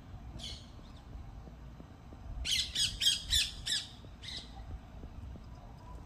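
A Japanese Chin's breathing with faint, scattered pops, the strange pops that can signal a breathing or heart problem in small toy dogs. Cutting across it is a quick run of about six loud, high-pitched calls in the middle, with a single call near the start and another just after the run.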